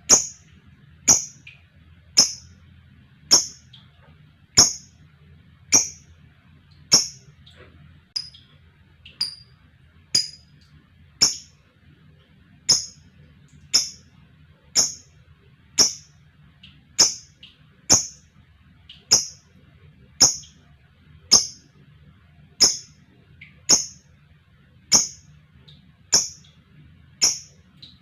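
A lovebird giving short, sharp, high-pitched calls at an even pace of about one a second.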